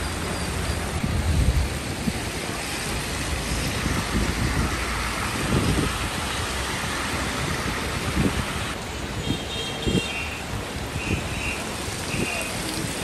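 Rain and road traffic on wet city streets: a steady hiss of rain and tyres with low rumbles. From about nine seconds in there are a few short, high repeated tones.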